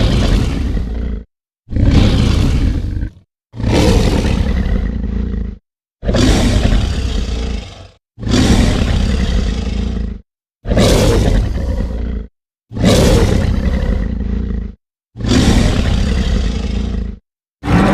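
A series of deep, loud monster-roar sound effects: eight separate roars, each about two seconds long, divided by brief gaps of dead silence.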